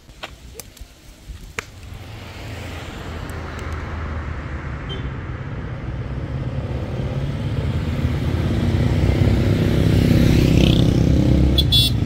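A motor vehicle engine approaching, growing steadily louder over about ten seconds, with a few sharp clicks in the first two seconds.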